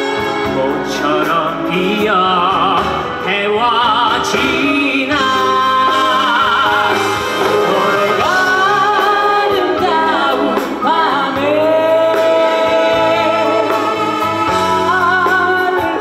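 A male singer singing a slow song live through a microphone with a band of acoustic guitar, electric guitar and keyboards, his voice wavering with vibrato and holding long notes in the second half.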